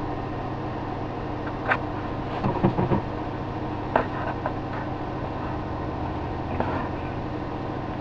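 A steady low mechanical hum, broken by a few sharp clicks and knocks, the strongest about four seconds in.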